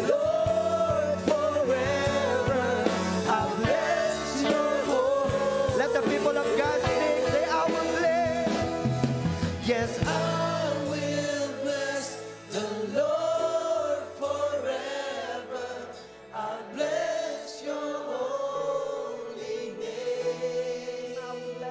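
Live worship song: a male lead singer with an electric guitar and bass band, the congregation singing along. The full band plays for the first half, then the bass drops out about ten seconds in and the accompaniment turns softer.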